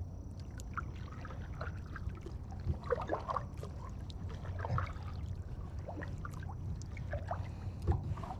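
Plastic hull of a Tucktec folding kayak being handled and put together: scattered clicks, knocks and short creaks, with a cluster of creaks about three seconds in, over a steady low rumble.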